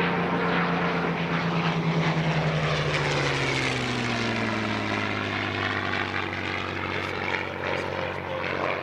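Rolls-Royce Merlin V12 engine of a WWII fighter flying past, its propeller drone dropping in pitch about two to four seconds in as it goes by.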